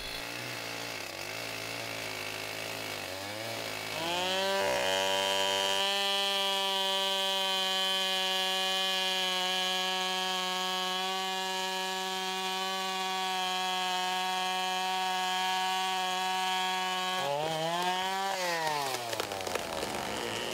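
Two-stroke chainsaw running at a low, uneven speed, then opened up to full throttle about four seconds in. It holds a steady high whine for about thirteen seconds, then is let off and winds down in pitch near the end.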